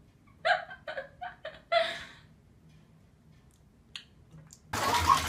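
A quiet, breathy chuckle of four or five quick puffs about half a second in, then near silence. Near the end a louder voice starts abruptly.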